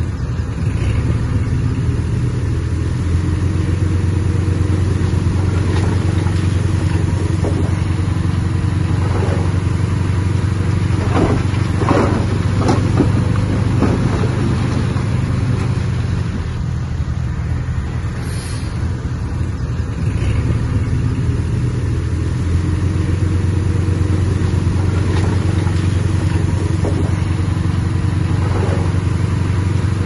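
Bulldozer's diesel engine running steadily under load, easing off briefly past the middle before picking up again. A few short, sharper squeaks or clanks come through about eleven to thirteen seconds in and again near the end.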